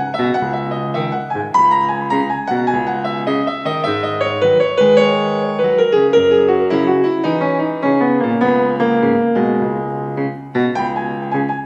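Background piano music played on a Yamaha MOXF synthesizer keyboard: a melody of notes moving over held chords, with a brief dip in loudness near the end.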